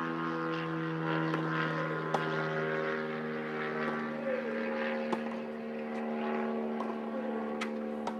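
Background music of slow, sustained chords that change every second or two. A few faint, sharp tennis-ball strikes on a racket sound a couple of seconds apart.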